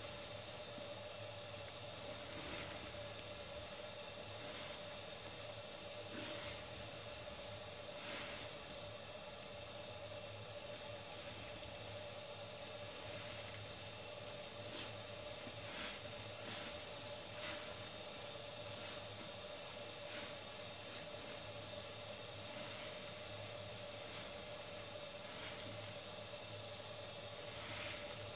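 Tap water running steadily onto a soapy sponge in a foam-filled sink as the sponge is squeezed and rinsed, giving an even hiss with a few faint squelches.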